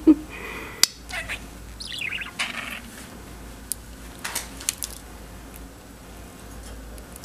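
A budgie giving a few short chirps with falling pitch, about two seconds in, among several sharp clicks or taps.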